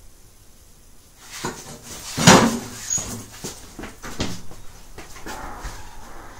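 A boy crying: a run of short, breathy sobs starting about a second in, the loudest a little after two seconds.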